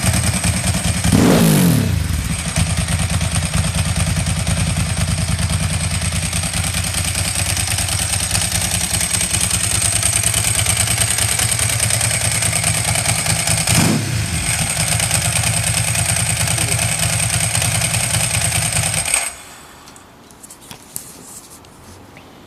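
2004 Ducati 999S's L-twin engine idling steadily, blipped twice with a quick rise and fall in revs about a second in and again near 14 s, then switched off about 19 s in, leaving only a few faint clicks.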